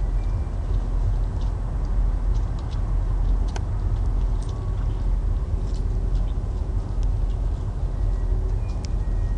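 Steady low rumble of a passing inland motor barge's diesel engine, with scattered light ticks over it.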